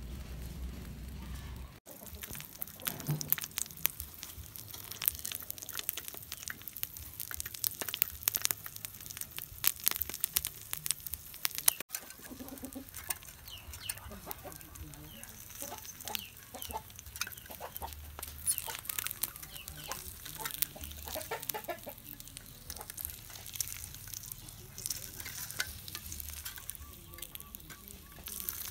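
Beaten egg sizzling and crackling as it cooks in an aluminium drink can over a candle, with a metal spoon stirring it and scraping against the can in many sharp clicks.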